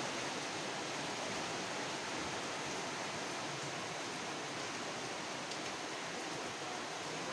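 Steady, even hiss of background noise, with no distinct knocks, clicks or voices.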